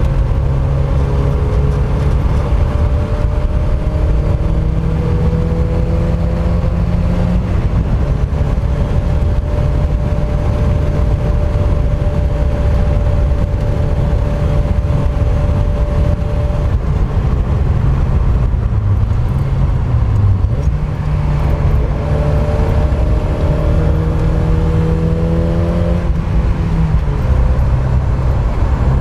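Mazda MX-5 Mk1's four-cylinder engine being driven hard on track: the engine note climbs steadily as it revs up, holds, falls away about two-thirds through, then climbs again before dropping at a gear change near the end. A constant rush of wind and road noise runs underneath.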